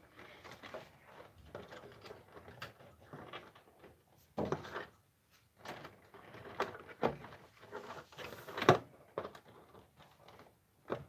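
Handling noise from fitting a replacement speaker into a TV: scattered small knocks, clicks and scrapes of parts against the set's plastic housing, with two louder knocks about four and a half and eight and a half seconds in.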